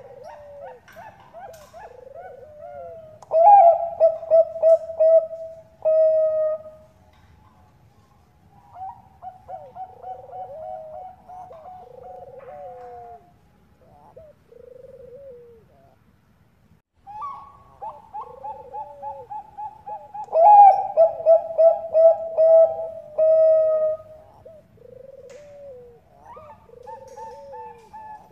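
Bangkok perkutut (zebra doves) cooing. Two loud phrases of rapid, rattling coo notes, one about three seconds in and another about twenty seconds in, stand out over quieter, overlapping cooing that runs on between them.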